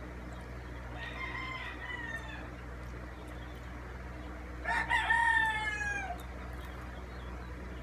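A rooster crowing twice: a faint crow about a second in, then a louder, longer crow about five seconds in, each trailing downward in pitch, over a steady low hum.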